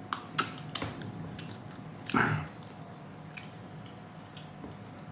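Wet mouth noises of someone eating with his hands: three sharp lip-smacking clicks in the first second as he licks sauce off his fingers, then one short, louder mouth sound about two seconds in, and faint smacks after it.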